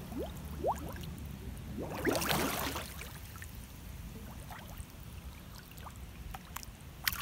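Swimming-pool water splashing and sloshing around a person moving in it, with a louder splash about two seconds in.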